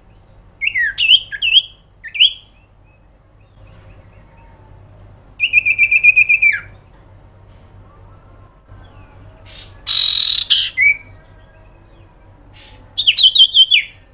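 Common iora (cipoh, sirtu) calling in separate bursts: a few quick chirps, a long rapid trill held level that drops at its end, a harsh rasping call about ten seconds in, and another falling trill near the end.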